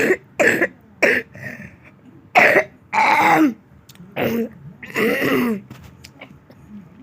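A person coughing in a fit: a run of about seven coughs, most short and two longer ones with a falling voiced tail, growing fainter near the end.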